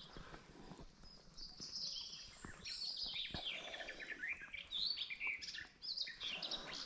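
Small birds singing: a run of quick high chirps and trills, overlapping.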